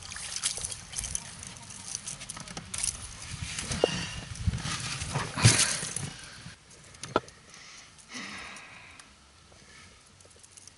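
Pike being handled in a boat: irregular knocks, rattles and splashy noise, loudest in a short burst about five and a half seconds in, then quieter with a few knocks.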